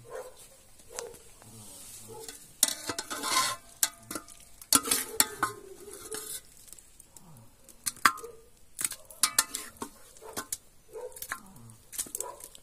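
Metal ladle stirring beef curry in an aluminium cooking pot, with many sharp clinks and scrapes against the pot and a couple of spells of hissing from the hot pot.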